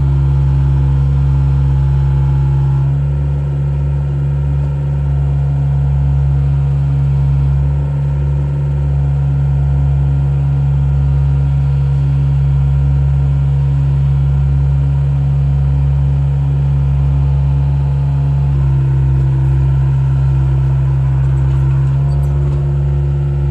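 Volvo excavator's diesel engine running steadily, with its note shifting slightly about 3 seconds in and again around 19 seconds in.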